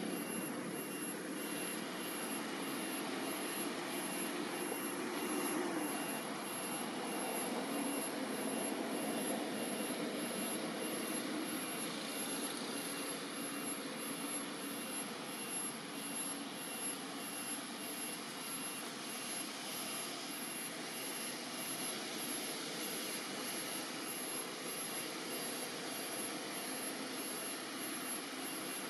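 Steady rushing background noise with a few faint constant high tones above it; no distinct calls or knocks stand out.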